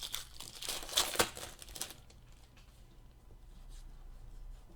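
Crinkling and rustling of a trading-card pack wrapper being handled, in a few short bursts over the first two seconds, then fainter handling noise.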